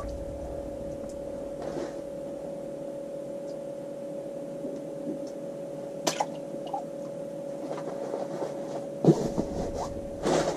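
A steady low hum, with a sharp click about six seconds in and a few short knocks near the end.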